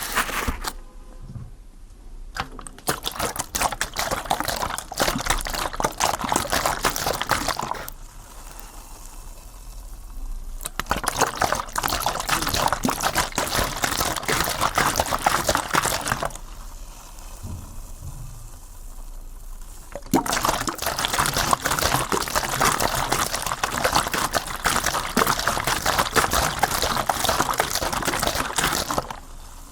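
Water poured onto a fire in three long spells, each a dense crackling hiss, with quieter gaps between them.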